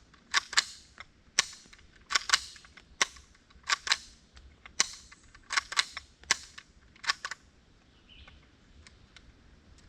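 A .22 rifle firing a rapid string of sharp cracks, about two a second and often in close pairs, with rounds that had been out in the weather for two months. The shots stop about seven seconds in, leaving a few faint clicks.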